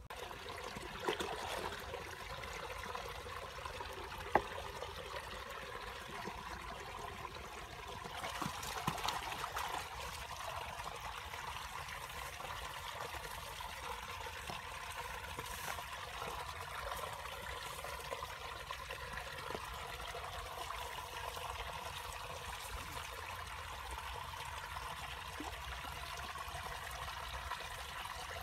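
Shallow water trickling and running steadily, with a sharp click about four seconds in.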